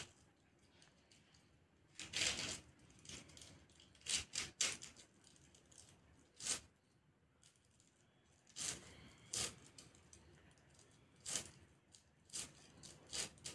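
Cauliflower florets being cut on a bonti, the upright floor-mounted kitchen blade: short, irregular cutting strokes, some single and some in quick runs of two or three.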